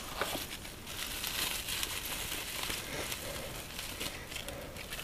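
Cardboard packing insert being slid out of a small box, then bubble wrap crinkling and rustling as a ceramic infrared heat emitter bulb is unwrapped.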